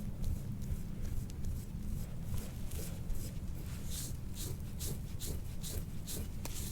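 A soft-tissue scraper drawn repeatedly over the skin of a patient's back, in short strokes of about three a second in the second half, over a steady low hum.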